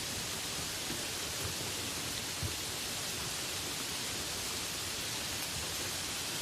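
Steady rain falling as an even hiss, with occasional heavier drops tapping.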